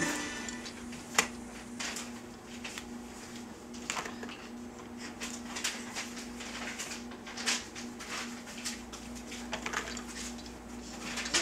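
Scattered plastic clicks and knocks from the toys of a baby's Rocking Entertainer activity centre being handled, with one sharper knock about a second in, over a faint steady hum.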